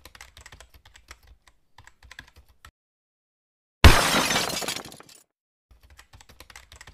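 Typing sound effect, a run of light key clicks as title text appears. About four seconds in, a loud glass-shattering sound effect breaks in and dies away over about a second, and the key clicks start again near the end.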